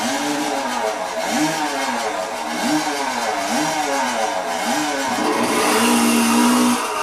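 Two-stroke chainsaw engine being revved over and over, its pitch rising and falling about once a second, then held at full throttle for about a second near the end before dropping back.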